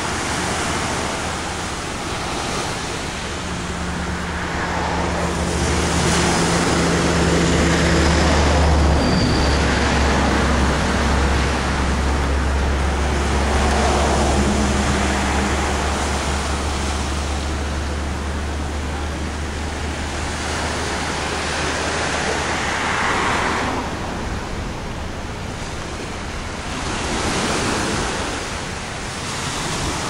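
Small surf breaking and washing up a sandy beach, the hiss swelling every few seconds. Under it runs a steady low rumble, strongest through the middle and fading out a few seconds before the end.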